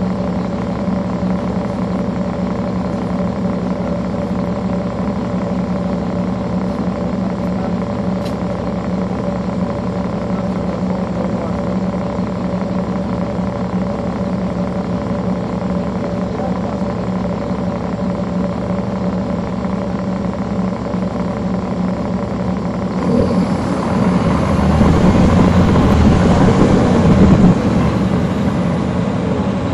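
A city bus's Caterpillar C13 ACERT diesel engine running steadily, heard from the rear seats. About 23 seconds in, the engine noise swells louder and rougher for several seconds, then dips briefly near the end.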